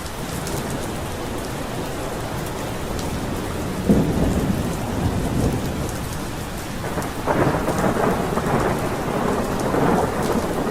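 Steady heavy rain with rolling thunder: a sudden clap of thunder about four seconds in, then a longer rumble building from about seven seconds to near the end.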